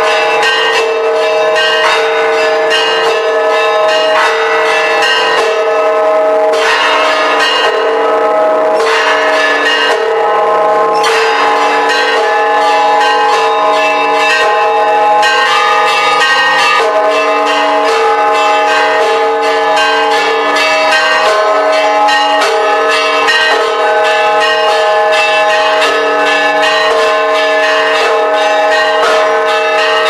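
Church bells of the Church of the Holy Sepulchre ringing in a continuous peal, with many strikes overlapping over steady, lingering bell tones.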